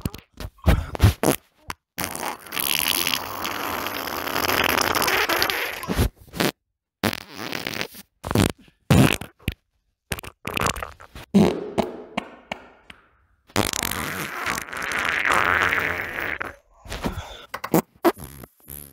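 A run of recorded human farts cut back to back with abrupt silent breaks between them. Most are short sputtering blasts; two are long and drawn out, one of about four seconds starting two seconds in and one of about three seconds in the last third.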